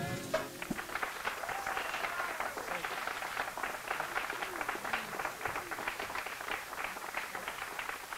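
Audience applauding just after a jug band's song ends, the last sustained note of the music cutting off in the first moment. The clapping goes on steadily and thins slightly near the end.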